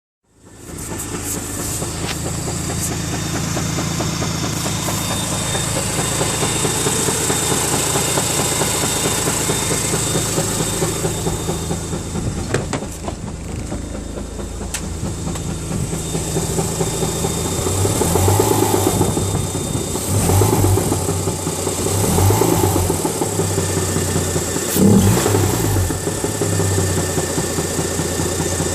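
Mazda RX-8's rotary engine running with a nasty rattle, blipped several times in the second half. The owner wonders whether the rattle comes from the SSV (secondary shutter valve) or a bearing.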